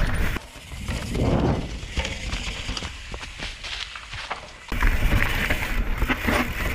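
Mountain bike rattling and clattering over rocky singletrack, with many sharp knocks from the bike and tyres, under wind rumble on the action camera's microphone. The sound changes abruptly about half a second in and again about two-thirds of the way through.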